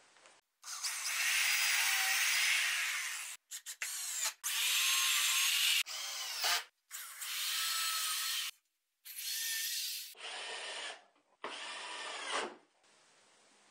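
Cordless drill driving screws into wooden framing boards in about half a dozen separate bursts, each one to three seconds long, with the motor's pitch rising and falling as each screw goes in.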